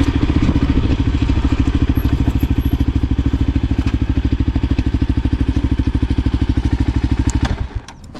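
Voge 300 Rally's single-cylinder engine running at a steady idle, an even rhythm of about a dozen firing pulses a second. It cuts out suddenly near the end.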